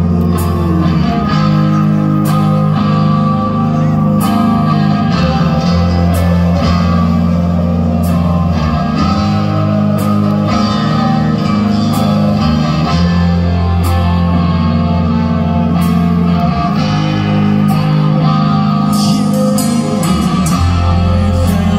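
Rock band playing live: amplified electric guitar over a steady drum beat, with sustained low notes changing every couple of seconds.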